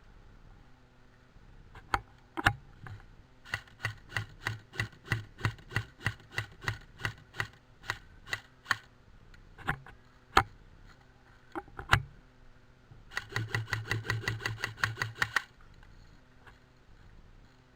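Airsoft electric rifle firing close by: single shots, then a long string of rapid semi-automatic shots, a few more singles, and near the end a fast full-auto burst of about two seconds.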